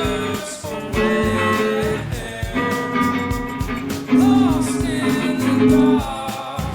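Music: a song with guitar over a steady drum beat.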